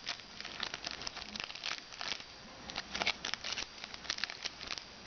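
Plastic wrapper of a trading-card pack crinkling and tearing as it is opened by hand, a dense run of irregular crackles with a few louder snaps about three seconds in.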